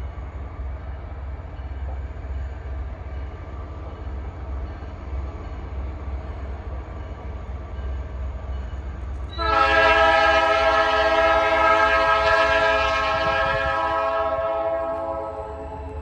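Approaching locomotive's air horn sounding one long blast, a chord of several tones, starting suddenly about nine seconds in over a steady low rumble and fading after about five seconds.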